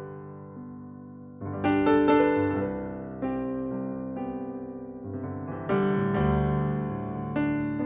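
Soft solo piano music: sustained chords struck about every one to two seconds and left to ring and fade.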